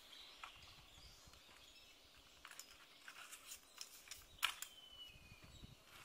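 Light clicks, knocks and rustling of a canvas tent and tent pole being handled on the ground, the sharpest knock a little after four seconds. A bird gives a thin, slowly falling whistle just after it.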